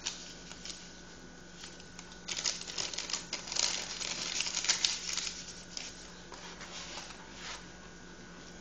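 Hands working flour into an egg-and-oil dough in a bowl: quick rubbing, scratching and crackling, thickest in the middle few seconds, with a faint steady hum underneath.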